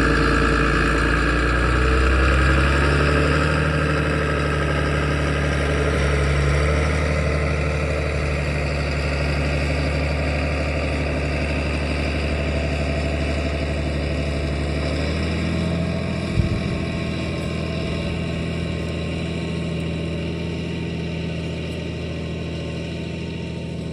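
Engine of a heavily loaded farm vehicle pulling out through a soft field under load. It runs steadily, loudest in the first few seconds and easing off slightly as it goes, with a small step up in pitch about 15 seconds in and a single short knock just after.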